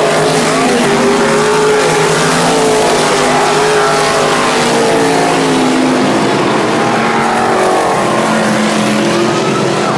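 Winged dirt-track sprint cars racing, their V8 engines loud, with the engine notes rising and falling as the cars pass and work through the turns.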